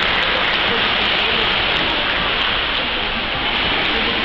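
Steady rushing and splashing of pool water churned up by dolphins swimming at speed, one of them pushing a trainer across the surface.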